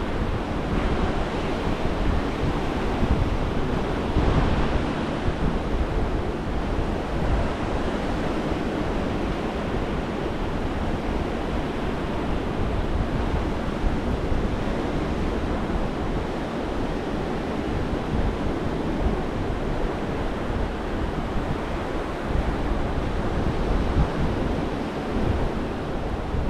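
Gulf of Mexico surf breaking and washing up the sand in a steady wash, with wind buffeting the microphone in low rumbling gusts.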